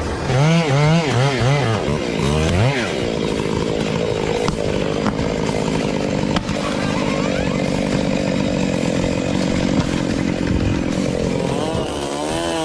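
Chainsaw revved hard about four times in quick succession, then held at high revs, running steadily while it cuts through a pine trunk; near the end the engine pitch sags and climbs again.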